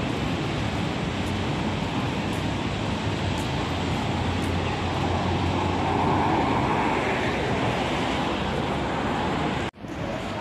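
Steady roadside traffic noise with wind rumbling on the microphone, swelling a little around the middle; the sound drops out for a moment near the end.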